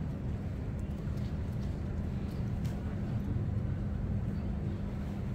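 Room tone: a steady low rumble with a constant hum, and a few faint clicks.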